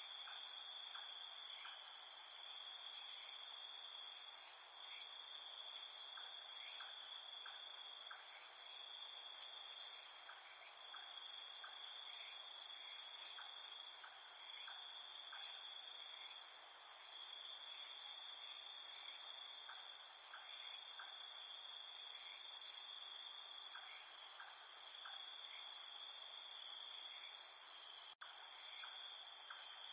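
A steady chorus of crickets trilling, several high trills overlapping without pause. A split-second dropout in the sound comes near the end.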